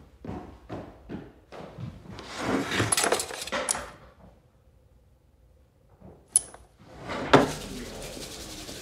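Footsteps on a hard floor, about two a second, then a burst of rustling with a few sharp clinks, a near-quiet pause, a sharp click and a loud thunk near the end.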